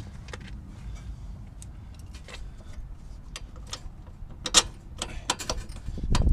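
Scattered metallic clicks and clinks, with a sharper knock about four and a half seconds in and a quick cluster after it, as a suspension bolt and hardware are worked into line with the rear trailing arm.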